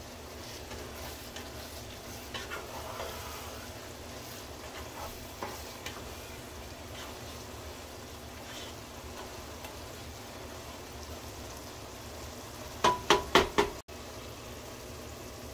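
Rice and stock boiling in a pot while a spoon stirs and scrapes through it, a steady hiss of bubbling. Near the end, about four sharp knocks in quick succession.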